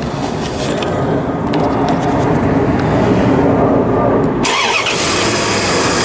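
1998 Dodge Ram pickup engine being cranked and starting, its starter fed through a wire jumped from the battery to bypass a suspect starter relay. The sound changes abruptly about four and a half seconds in.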